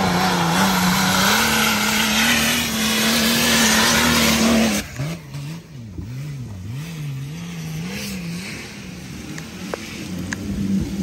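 Nissan Patrol's swapped-in BMW M57 inline-six turbodiesel, tuned to about 400 hp, held at high steady revs under full throttle while climbing a steep dirt hill. About five seconds in the revs drop suddenly, then rise and fall repeatedly, just under twice a second, as the driver works the throttle over rough ground, building again near the end.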